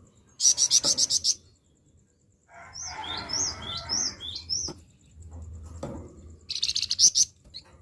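A songbird singing harsh, scratchy notes: two rapid chattering bursts of about a second each, one near the start and one near the end, with a run of short, sharp chirps between them.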